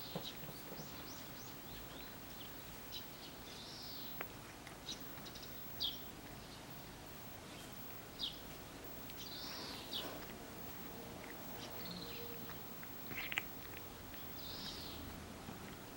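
Small birds chirping in short, high calls now and then over a low steady background, with a few soft clicks from a cat licking as it washes its face.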